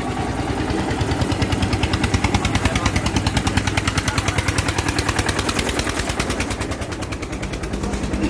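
Engine running with a rapid, even thudding, about ten beats a second, getting louder about a second in and easing off near the end.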